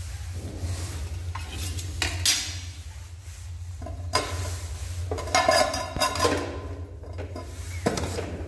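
Metal spatula stirring and scraping chicken pieces in a non-stick kadhai over a light sizzle, then a stainless steel plate set on the pan as a lid, clattering and ringing for about a second around the middle. A steady low hum runs underneath.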